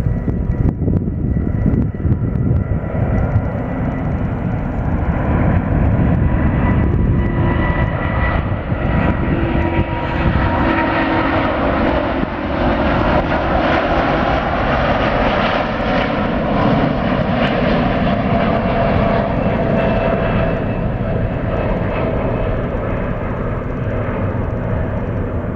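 Boeing 787-9 Dreamliner's twin turbofan jet engines at takeoff thrust: a loud, steady jet roar with several whining tones as the airliner rolls down the runway, lifts off and climbs away. The whining tones drift slightly lower in pitch in the second half.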